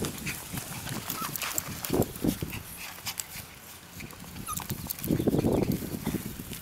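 Pocket beagles giving short play vocalizations as they wrestle: a couple of brief sounds about two seconds in and a longer run about five seconds in.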